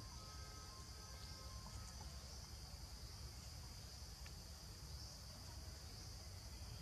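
Faint, steady insect chorus: a continuous high-pitched buzzing drone, over a low background rumble.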